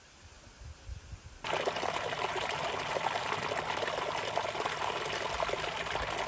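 Water of a small stream running and trickling over mossy stones, cutting in suddenly about a second and a half in and then holding steady.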